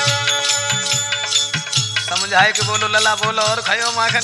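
Instrumental interlude of Indian folk music: steady percussion strokes over a held drone, and a melody with sliding, wavering notes coming in about halfway.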